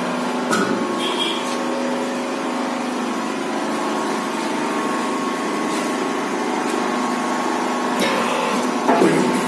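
Hydraulic power pack of a paver block press running with a steady hum. Sharp metallic clicks from the press come about half a second in and again near the end.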